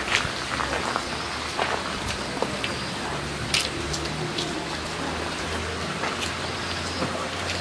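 Steady outdoor background hiss with a faint low hum, broken by a few short light clicks, the loudest about three and a half seconds in.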